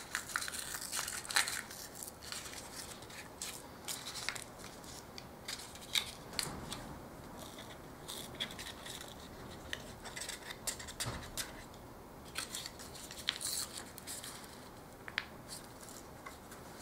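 A small foil seed sachet being torn open and crinkled in the hands: irregular crackles and light ticks, densest in the first couple of seconds and thinning to sparse rustles after.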